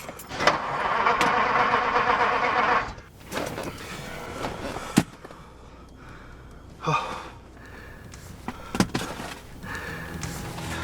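Car starter cranking the engine for about two and a half seconds without it catching, followed by a few sharp clicks and knocks.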